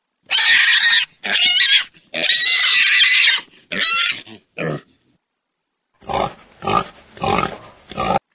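Domestic pig squealing five times in quick succession, with high-pitched, wavering calls. After a pause it grunts four times near the end.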